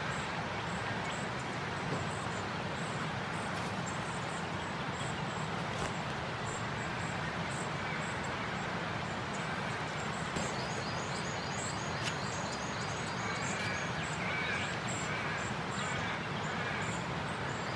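Outdoor bush ambience: a steady background hiss with birds calling, including a run of high, quick chirps over the second half.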